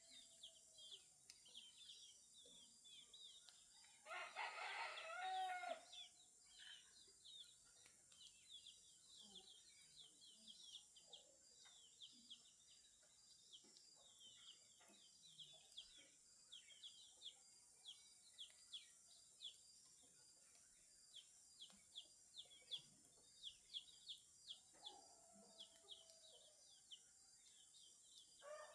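A rooster crows once about four seconds in, and a fainter crow comes near the end. Under it runs continuous rapid chirping of small birds over a steady high hiss.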